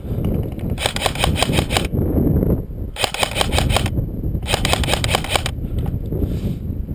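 Airsoft gun firing on full auto in three bursts of about a second each, a fast even rattle of shots, over a low rumble of handling and movement noise on the microphone.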